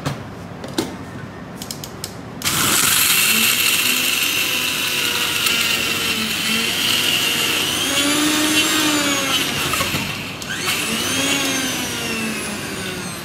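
Electric mixer grinder with a small steel jar grinding a dry-fruit mixture into powder. A few clicks as the jar and switch are handled, then the motor starts about two and a half seconds in and runs loudly, cuts out briefly near the ten-second mark and starts up again.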